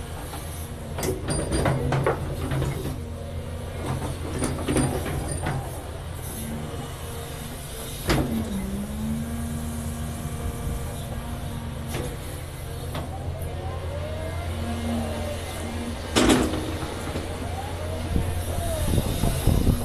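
Caterpillar 336 Next Gen hydraulic excavator digging clay and rock: a steady diesel engine drone under a hydraulic whine that rises and falls as the arm moves, with scraping and knocks of the bucket in the rock. The loudest knocks come about eight and sixteen seconds in.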